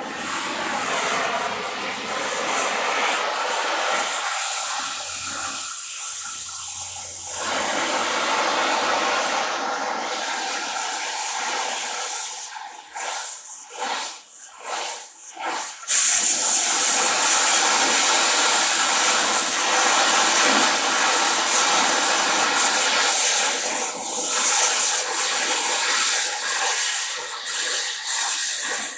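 Oxy-fuel cutting torch flame hissing steadily. A little before halfway the hiss breaks up several times, then comes back suddenly much louder and brighter.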